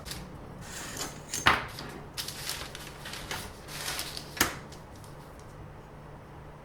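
Close handling noise: a run of light knocks and rustles, with two sharper knocks about a second and a half and four and a half seconds in, then it settles.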